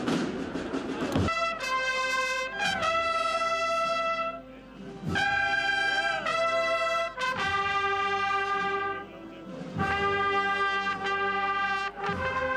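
Processional band trumpets playing a slow phrase of long, held notes, stepping between pitches, with short breaks between phrases. The trumpets come in about a second in, after a short stretch of noise.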